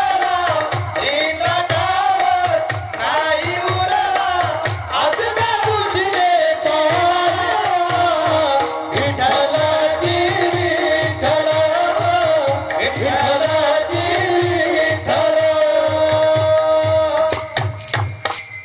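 Devotional kirtan singing: a voice sings a bending melody over a steady drum beat, with small hand cymbals or jingles striking along in rhythm.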